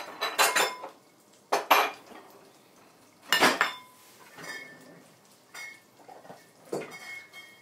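Kitchen dishes and utensils being handled: a series of separate clatters and clinks, the loudest about three and a half seconds in, followed by lighter clinks that ring briefly.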